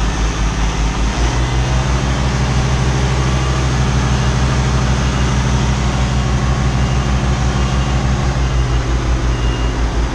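Semi-truck diesel engine running under load as the truck reverses with its semitrailer: a loud, steady low rumble.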